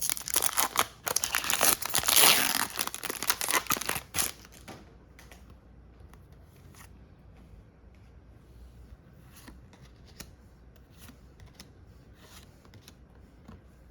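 Foil booster-pack wrapper of Pokémon trading cards being torn open and crinkled for the first four seconds or so, then quiet, scattered small clicks and rustles as the cards are handled.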